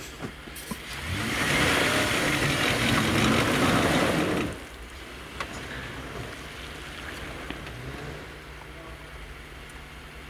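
Jeep engine revving hard for about three seconds, then dropping back suddenly to a steady idle.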